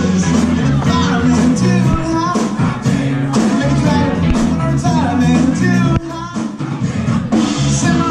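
Background music: a rap-rock song with sung and rapped vocals over a steady beat, bass and guitar.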